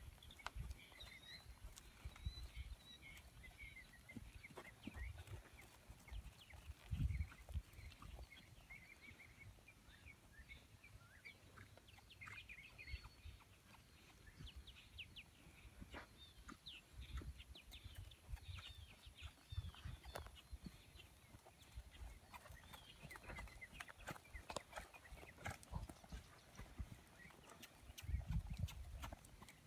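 Faint hoofbeats of a horse moving on a soft dirt arena, irregular low thuds, with a few louder thumps about seven seconds in and near the end.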